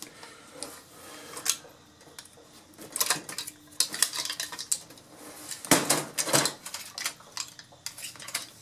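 Irregular metallic clicks and clatter of a thin sheet-steel LCD panel frame being handled and pried apart by hand, loudest in a cluster about six seconds in.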